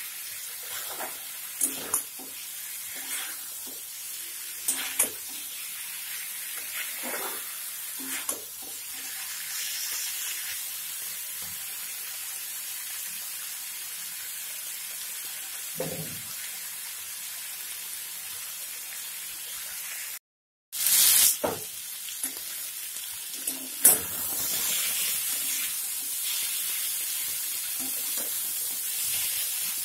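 Spice masala of cumin-coriander powder and green chilli paste sizzling steadily in hot oil with pointed gourd and potato, while being fried down. A spatula scrapes and stirs it against the pan every second or two.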